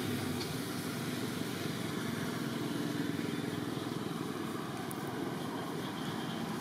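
Steady low hum of distant engine traffic.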